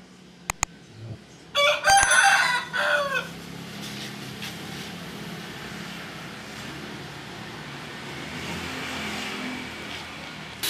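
Two sharp clicks, then a rooster crows once, loud, about a second and a half in, the call falling in pitch at its end; a steady low background hum follows.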